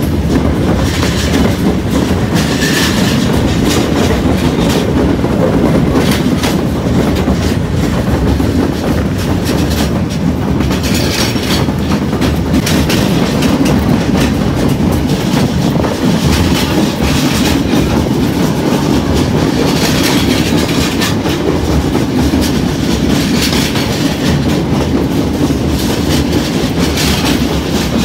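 Passenger train running, heard from aboard a carriage: a steady loud rumble with the wheels clattering over the rail joints.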